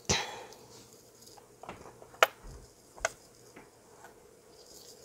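Beads clicking and tapping against each other and the work surface as a strung bracelet is handled: five light clicks spread out, the sharpest a little past two seconds in.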